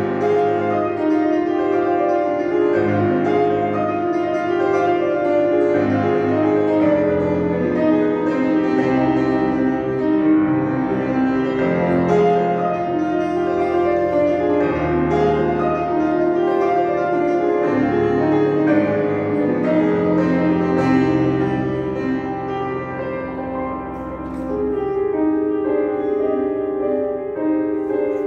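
Grand piano played solo: a melody over sustained chords and a moving bass line, easing slightly in loudness about three-quarters of the way through.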